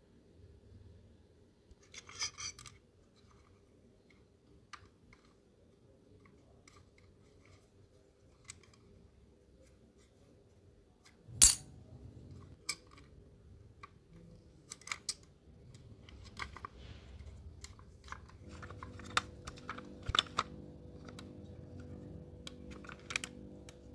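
Scattered small clicks, taps and a brief scrape of small tools and parts being handled in a model-car restoration, with one sharp, much louder click about eleven seconds in. The clicks come more often in the second half, and a faint steady hum joins in for the last few seconds.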